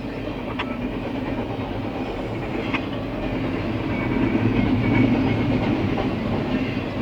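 CSX freight train rolling past, its wheels clicking over rail joints, getting louder about four seconds in.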